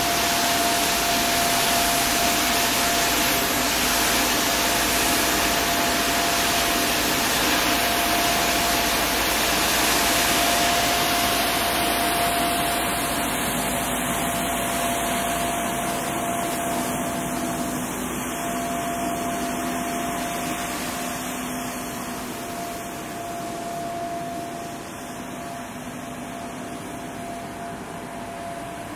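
Street sweeper running: a loud, even rushing hiss with a steady high whine and a lower hum, growing gradually fainter from about halfway as the machine moves away.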